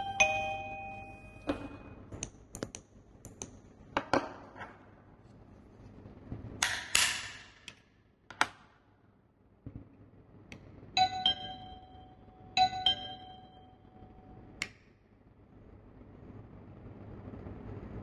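Wireless SOS pager receiver sounding its two-tone ding-dong chime as it fades out, then clicks of handling and a screwdriver tip on the receiver's back button. Near the middle there is a short rustling burst, and in the second half the receiver gives two brief two-tone chimes.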